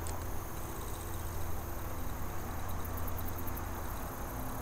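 Lew's Mach 1 spinning reel cranked steadily to retrieve a spinner lure, a low mechanical whir over a steady low rumble.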